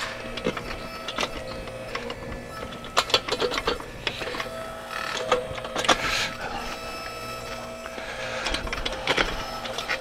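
Electric-driven hydraulic backhoe digging: a steady hum from its electric motor and hydraulic pump, with repeated scrapes, clicks and knocks as the steel bucket cuts into rocky soil.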